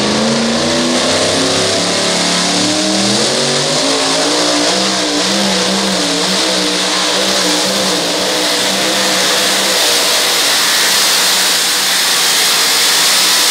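Supercharged engine of a two-wheel-drive pulling truck running at full throttle, pulling the sled. The note climbs and wavers over the first five seconds, then holds steady and high.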